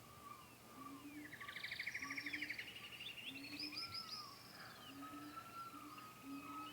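Faint birdsong ambience with several birds calling: a rapid trill about a second in, repeated short down-slurred chirps and a thin drawn-out whistle, over a soft low note that recurs about once a second.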